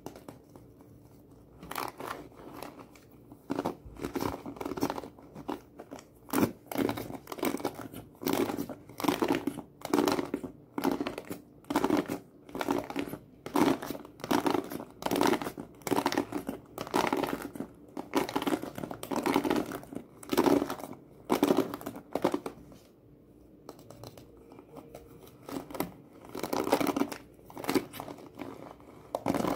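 Bristles of a plastic hairbrush scratched and raked in repeated crisp strokes, about two a second, pausing briefly about three-quarters of the way through.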